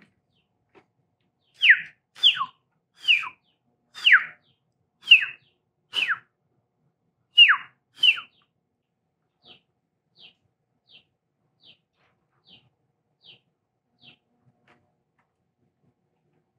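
A man whistling: about eight loud notes, each sliding downward in pitch, then seven short, soft high whistles evenly spaced and fading out.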